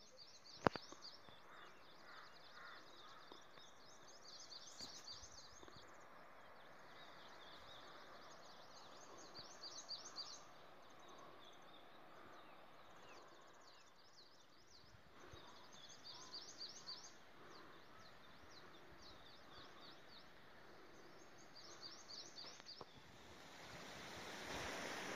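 Faint outdoor ambience with a small bird singing short, fast high trilled phrases every four to five seconds. A single sharp click about a second in.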